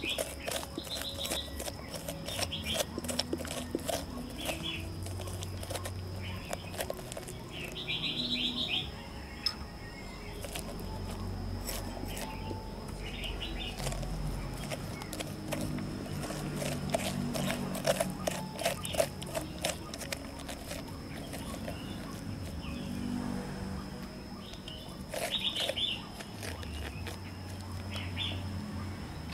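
A metal spoon scrapes and clicks against the inside of a halved pumpkin as its seeds and stringy pulp are scooped out. Birds chirp in short calls now and then.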